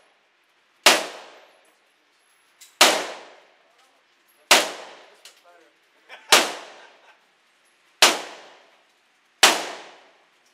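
Single gunshots at an indoor shooting range, six shots spaced about one and a half to two seconds apart, each followed by a ringing echo that dies away.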